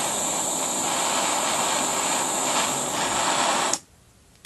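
Butane torch flame hissing steadily as it heats a quartz banger, then cut off suddenly about 3.8 seconds in. A single short click follows right at the end.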